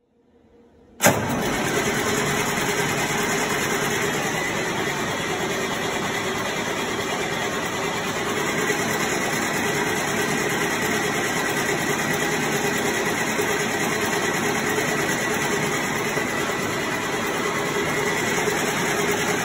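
Mack E6 inline-six diesel engine sounding steadily. It comes in abruptly about a second in and then holds an even level with no surges.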